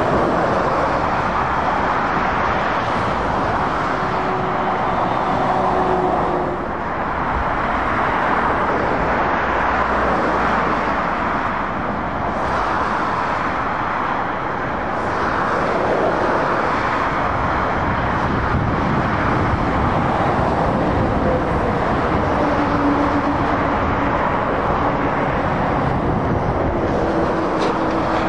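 Steady traffic noise of lorries and cars passing at speed, with a brief dip in level about six seconds in.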